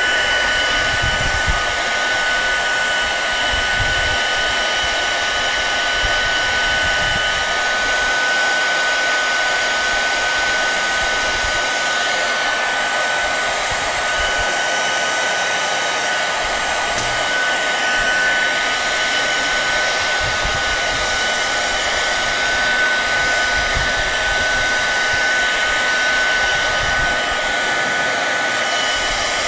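Handheld hair dryer running steadily, blowing hot air onto self-adhesive vinyl film to warm and soften it for shaping. A steady whine sits over the rush of air.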